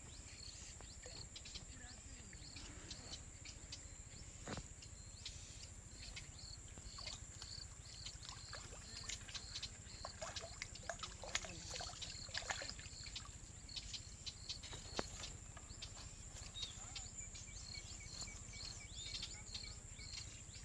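Rural outdoor ambience: a steady high-pitched insect drone with many short repeated chirps over it, and scattered faint clicks and ticks, busiest in the middle.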